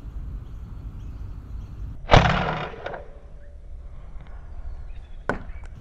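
Sabre M20S spring-powered foam-dart sniper blaster, with its 26 kg spring, firing once about two seconds in: a sudden sharp crack that fades over about a second. A fainter sharp click follows near the end.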